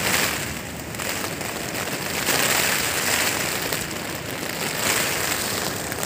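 Rain and gusting wind beating on a thin nylon tent, heard from inside, the noise swelling and easing with the gusts as the tent sways.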